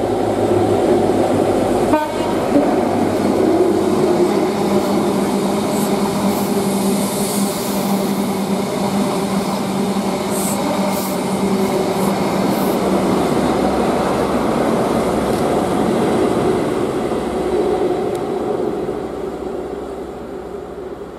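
British Rail Class 43 HST (InterCity 125) diesel power car running as the train passes at speed, its engine making a steady drone over the rumble of the coaches on the rails. A sharp clunk comes about two seconds in, and short high-pitched squeals come through the middle. The sound fades near the end as the train moves away.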